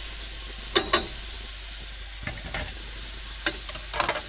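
Chicken pieces sizzling in a frying pan, with sharp clicks and clinks of kitchen utensils: two loud ones about a second in and a cluster near the end.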